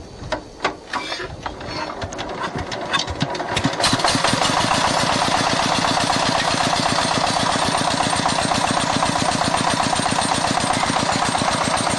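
An engine starting up: a few uneven knocks quicken and grow louder over about four seconds, then it settles into steady, fast running.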